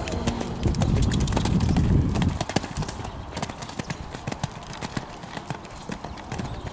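A horse's hooves cantering on a sand arena: a steady run of dull hoofbeats. A heavy low rumble fills about the first two seconds, then the hoofbeats carry on quieter.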